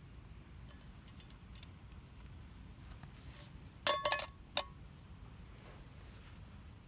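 Camp cooking gear clinking: a quick cluster of sharp metal-on-metal clinks with a brief ring about four seconds in, then a single clink about half a second later, after a few faint small taps.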